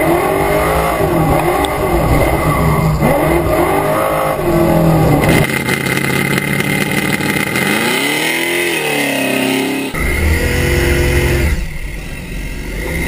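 Performance car engines revving hard under acceleration, the pitch climbing and falling again and again as the cars are driven flat out. The sound changes abruptly a few times as one car gives way to the next, and is a little quieter near the end.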